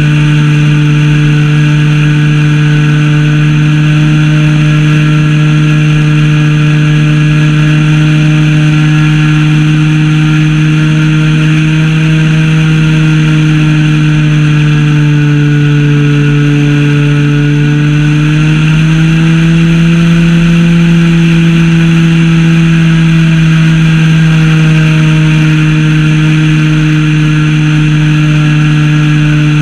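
Zenoah ZP 20 two-stroke petrol engine of a Super Senior 80 RC plane running steadily in flight, heard loud and close from a camera strapped to the plane. Its pitch sags slightly, rises about two-thirds of the way through, then eases back near the end.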